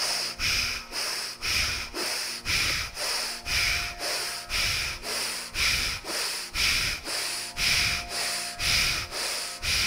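Forceful, bellows-like nasal breathing through one nostril, the other held closed: rapid strokes of air in and out, about two a second, the rhythmic breath of bhastrika pranayama.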